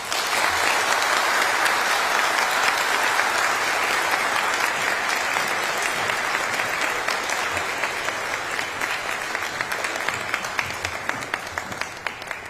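A large audience applauding at the close of a speech. The clapping starts at once, holds steady, and thins out over the last few seconds.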